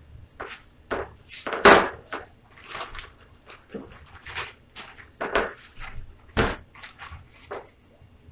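Plastic bag crinkling in quick irregular bursts as chicken wings are shaken inside it to coat them in seasoned flour, with a couple of heavier thuds, the loudest about a second and a half in.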